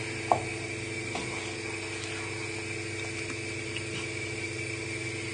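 Steady mechanical hum in a kitchen, with a single clink of a spoon against the cooking pan shortly after the start and a few faint ticks while the sauce is stirred.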